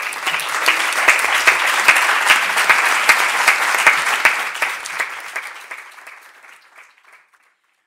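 Audience applauding after a talk, dense clapping that dies away over the last few seconds.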